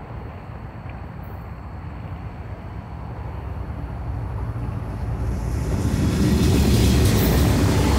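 Diesel freight locomotives approaching and passing close by, engine rumble and wheel noise on the rails growing steadily louder until the lead unit reaches the microphone about six seconds in.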